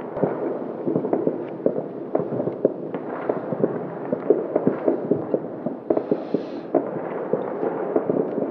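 Many fireworks and firecrackers going off at once, far and near: a continuous rumble of overlapping bangs with sharper, irregular cracks several times a second, and a brief hiss a little after halfway.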